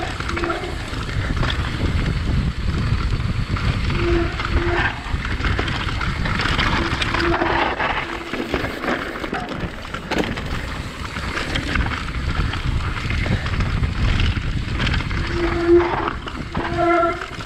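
Mountain bike riding down a dirt trail: steady wind noise on the microphone and tyres rolling over dirt and rocks, with a few short humming notes at intervals.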